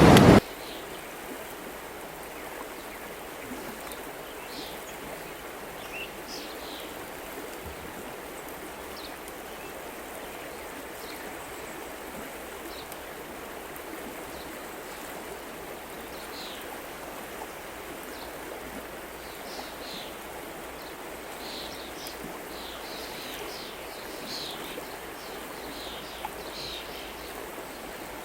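River water flowing in a steady rush, with small birds chirping here and there above it, more often in the second half.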